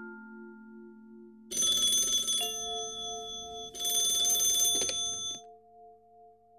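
A bell rings in two loud bursts, about a second and a half in and again about four seconds in, over held musical notes that ring on.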